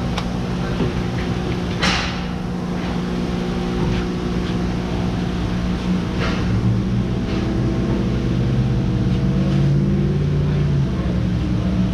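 Steady low machine hum that grows a little louder in the second half, with a few sharp clicks of hand tools on metal as the engine's crankshaft front seal is worked on.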